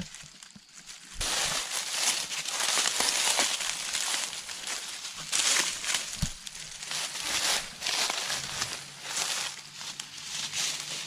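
Footsteps of a person and goats crunching and rustling through deep dry fallen leaves, in uneven surges.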